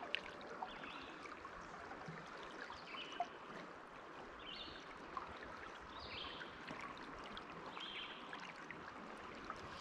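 Faint, steady rush of a river's current, the water running high.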